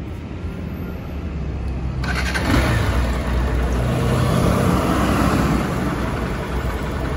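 Hero Hunk 200R's single-cylinder engine running at idle, growing clearly louder and noisier about two seconds in.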